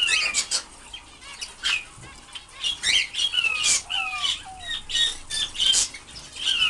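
A room of caged canaries and finches calling together: a busy mix of sharp chirps and short falling call notes, one after another.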